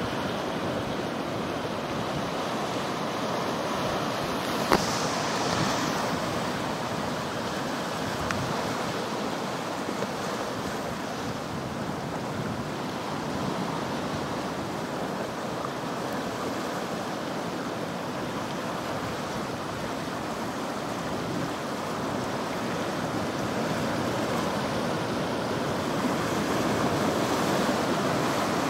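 Steady wash of ocean surf, growing a little louder near the end, with one brief sharp tap about five seconds in.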